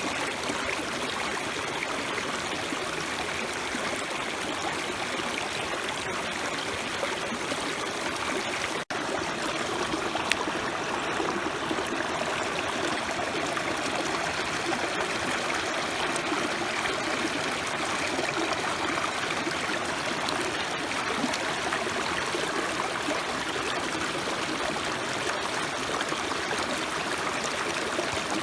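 Food sizzling on a thick cast-iron griddle over a campfire: a steady, even hiss with fine crackles.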